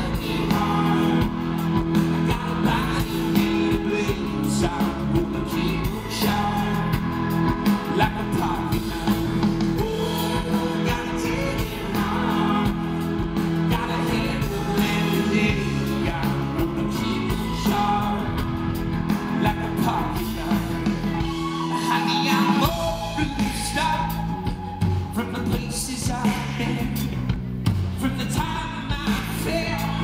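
Live rock band playing with a male lead vocal: electric guitars, bass guitar and keyboards. The lowest notes drop out for about a second a little past the middle.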